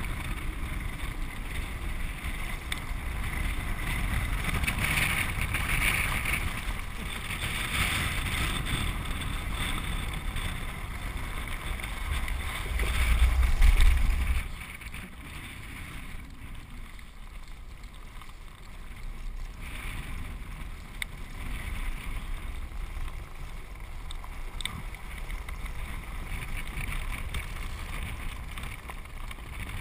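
Land yacht rolling fast over a dry lake bed: wind buffets the camera microphone over a low rumble from the wheels on the cracked playa. The noise is louder through the first half, swells about twelve seconds in, then drops off suddenly and stays quieter.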